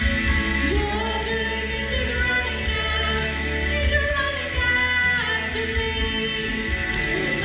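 A woman and a man singing a slow contemporary worship song together over a steady low bass.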